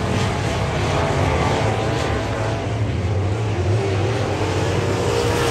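Several dirt-track race cars' engines running steadily as the cars circle the oval.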